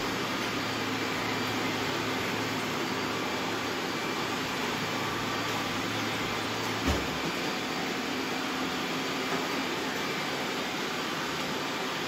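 A large group of robot vacuum cleaners running at once on a tiled floor, a steady whirring of their suction motors and brushes. A single short knock sounds about seven seconds in.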